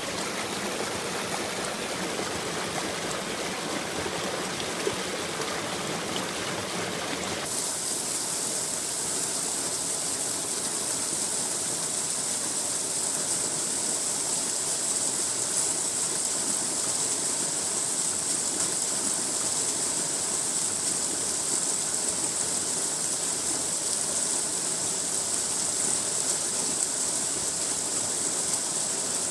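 Water rushing steadily through a wooden weir and fish ladder and spilling down a small stream cascade. About seven seconds in, the rush abruptly turns brighter and hissier.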